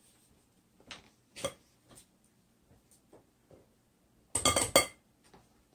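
Light scattered clicks and taps of a measuring cup against a cocoa can and a mesh sifter over a glass bowl while cocoa powder is measured out. About four and a half seconds in comes a quick run of sharper knocks, the loudest sounds.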